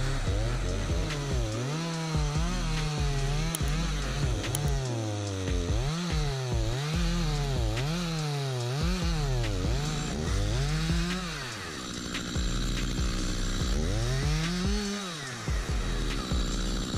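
Petrol chainsaw cutting into a tree trunk, its engine pitch rising and falling about once a second as it revs and loads in the cut. It holds steadier for a couple of seconds after the middle.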